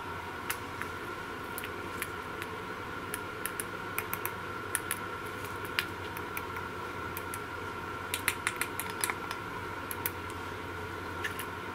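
Irregular light metallic clicks and taps of crocodile clips and wire ends being handled and clipped onto a car battery's terminal, thickest about four seconds in and again about eight seconds in. A steady high hum runs underneath.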